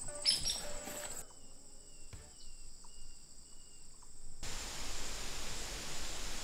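Music ends about a second in. Faint short high chirps repeat every half second or so over quiet woodland, and about four seconds in a steady outdoor hiss takes over.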